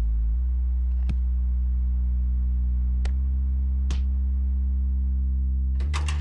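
Background music of sustained, low synth-like chords, the chord changing about every three seconds, with a few short knocks over it.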